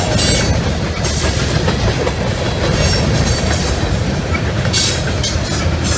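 Freight cars of a Norfolk Southern train rolling past close by: a steady heavy rumble of wheels on rail with clickety-clack over the joints. Brief high-pitched screeching from the wheels comes near the end.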